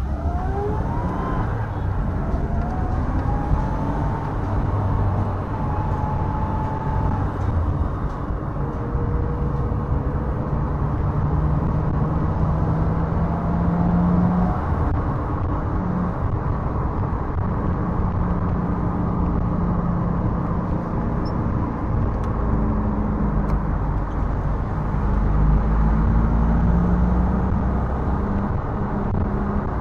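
Car engine and tyre noise heard from inside the cabin while driving in traffic. The engine note climbs as the car speeds up at the start, then rises and falls with the driving.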